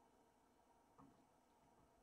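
Near silence: faint room tone, with one brief soft knock about a second in.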